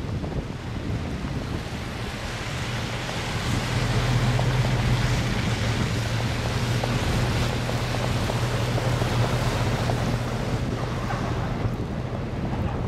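Wind buffeting the microphone and vehicles hissing through slush on a snowy road. A steady low engine hum swells in about three and a half seconds in and fades out around ten seconds.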